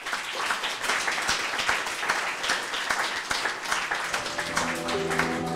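Audience applauding: many hands clapping in a dense, even patter. Music with held notes fades in under the clapping near the end.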